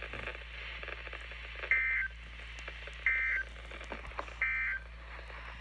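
Emergency Alert System End of Message (EOM) data signal: three short bursts of two-tone digital data screech, evenly spaced about a second and a half apart, marking the end of the severe thunderstorm warning. A steady low hum runs underneath.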